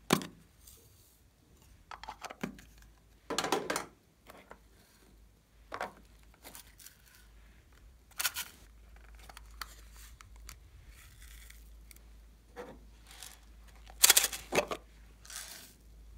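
Hands handling small plastic containers and cases: scattered clicks, taps and short rustles, with a half-second rustle a few seconds in and the loudest cluster of clatter about 14 seconds in.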